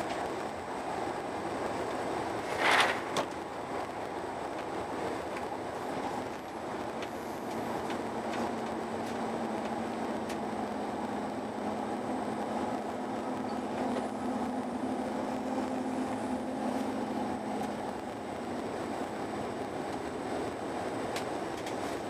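Steady rumble of a high-speed passenger train at speed, heard from inside the carriage. A single sharp bang cuts through about three seconds in, and a low steady hum rises in the middle for about nine seconds.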